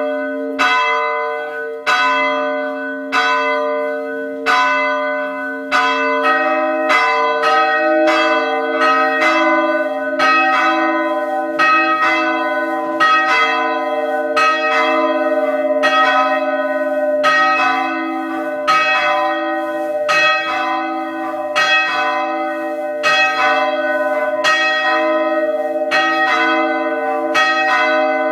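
Church bells rung by hand: one bell strikes about every second and a half, then about six seconds in a second bell of a different pitch joins and the two strike in turn, each stroke ringing on under the next.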